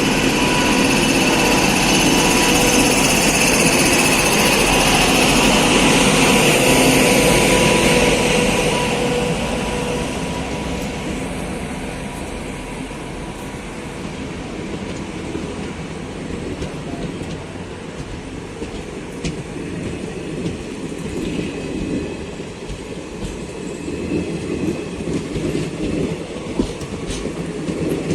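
Passenger train hauled by a WAP-7 electric locomotive pulling out and rolling past. A loud running noise with a steady whine for the first eight or nine seconds, then a lower rumble of the coaches with scattered wheel clicks over the rail joints, growing louder again near the end.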